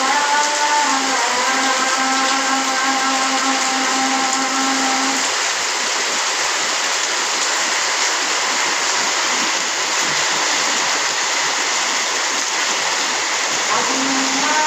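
Heavy rain falling, a steady loud hiss. A steady pitched tone with several overtones sounds over it for the first five seconds and returns near the end.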